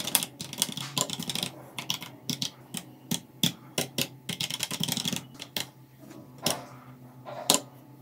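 FL Esports FL980 CP mechanical keyboard with Kailh Box Red linear switches being pressed: a run of irregular key strokes that thins out near the end to two single presses.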